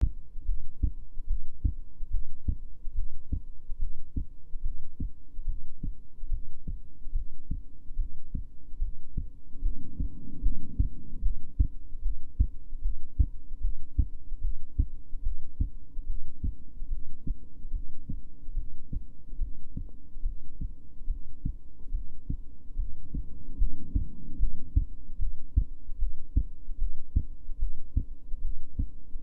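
Human heartbeat: a steady run of low, dull thuds in the lub-dub pattern. The owner asks whether the rhythm is a gallop.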